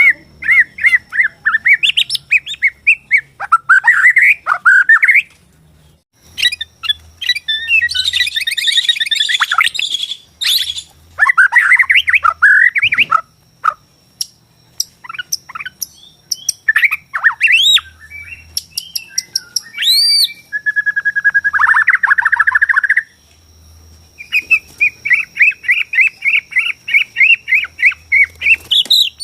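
Borneo white-rumped shama (murai batu) singing a loud, varied song of whistled trills and sweeping notes in short phrases, with one buzzy phrase and, near the end, a long run of fast repeated notes. It is the kind of song played to provoke other shamas into fighting mode.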